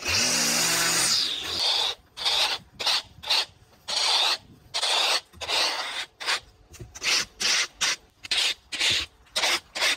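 String trimmer motor running, then slowing and dying away over the first second and a half. After that comes a plastic leaf rake scraping grass clippings across a concrete footpath in quick repeated strokes, about one or two a second.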